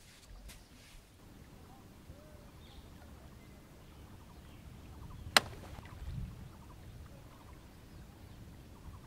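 Quiet rural outdoor ambience with a faint low rumble, broken by one sharp click about five seconds in and a soft low thump a second later.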